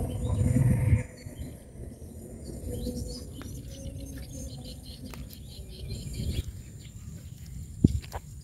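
Outdoor ambience of small birds chirping, with a steady high insect drone behind them. A low rumble fills the first second, and a single sharp click comes near the end.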